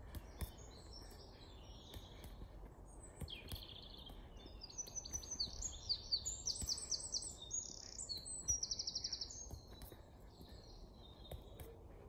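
Songbirds singing a run of chirps and phrases, the loudest a rapid trill of repeated notes about eight and a half seconds in, over a low hum of outdoor noise. A few faint soft taps of a football being touched with the foot.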